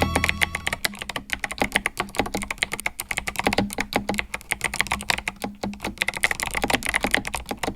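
Fast typing on an 8BitDo Retro Mechanical Keyboard with clicky Kailh White switches: a dense, rapid stream of sharp key clicks.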